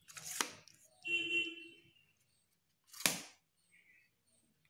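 Aluminium tripod legs being slid out to extend the tripod: two short scraping slides, one near the start and another about three seconds in, with a brief high squeaky tone between them.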